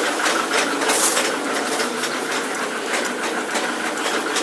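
Ford Mondeo Mk3 turbo-diesel engine running with repeated sharp knocks over its steady running. It is an unexplained engine knock that the owner hears coming from the left side of the engine, as if from the timing chain.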